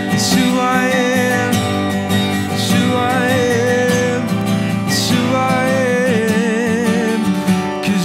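A man singing long, wavering held notes over a strummed acoustic guitar, in a slow worship song.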